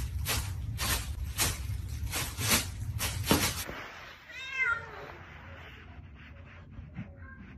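A run of rhythmic crackles for about the first three and a half seconds. Then a domestic cat gives one meow that falls in pitch, about four and a half seconds in, followed by a few faint clicks.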